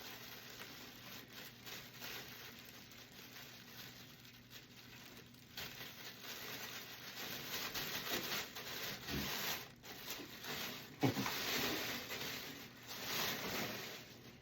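Packaging rustling, rubbing and tearing as a drum is pulled out of its box and unwrapped, growing busier after about six seconds, with a sharp knock about eleven seconds in.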